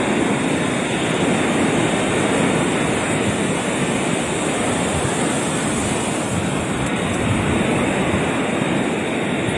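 Ocean surf breaking on the shore and rocks in a steady, continuous rush of churning water.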